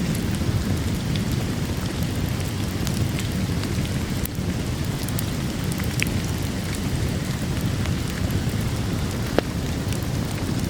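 Steady heavy rain with a deep low rumble, and a few sharp isolated crackles from a wood fire.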